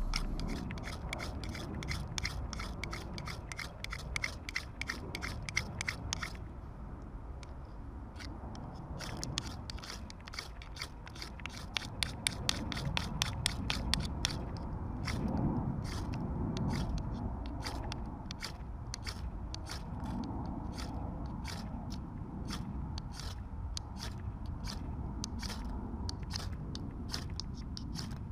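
Knife blade shaving thin curls off a dry wooden stick, carving a feather stick for fire tinder: quick repeated scraping strokes, about two or three a second.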